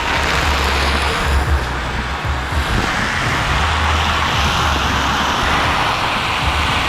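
Shower water spraying and splashing, a loud steady hiss, with a deep uneven rumble underneath.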